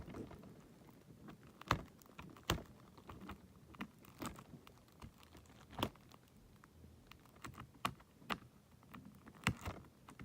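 Plastic shrink wrap being peeled off a DVD case, giving scattered, irregular crackles and clicks.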